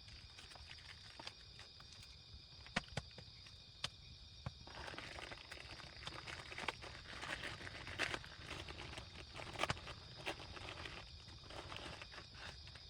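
Rustling and crackling of dry leaves and twigs, with a few sharp clicks, busier from about five seconds in until about eleven seconds in. A steady high whine runs underneath.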